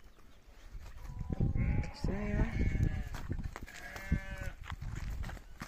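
Sheep bleating twice, a longer wavering call followed by a shorter one, over low scuffling as it is handled.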